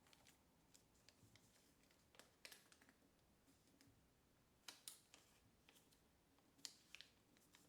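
Faint crisp rustles and crackles of thin origami paper (kami) being folded and creased, in small clusters about two, five and seven seconds in.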